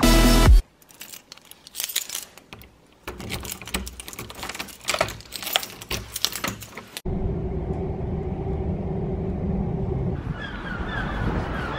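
Keys jangling and sharp clicks of a door lock and handle being worked. About seven seconds in, this cuts to the steady low rumble of a moving vehicle heard from inside it.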